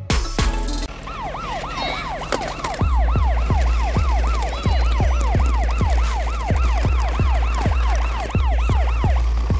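Police siren in a fast yelp, about three rising-and-falling sweeps a second, over music with a heavy bass beat that comes in about three seconds in.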